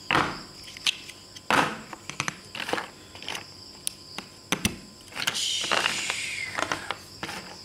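Large plastic toy building bricks clicking and knocking as they are handled and snapped together, with a scraping rattle of plastic about five seconds in.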